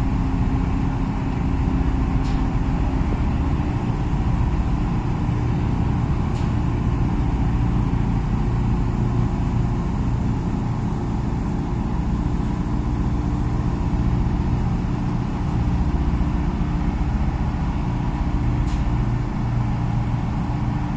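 Tugboat engine running steadily: a loud, even drone with a deep hum that does not change in speed.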